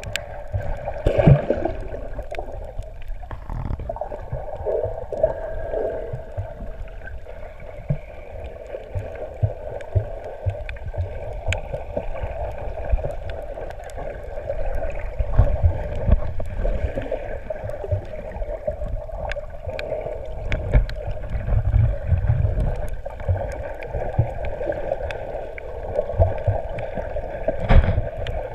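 Muffled underwater sound picked up by a camera in a waterproof housing: water moving with an uneven low rumble, scattered sharp clicks, and a steady hum.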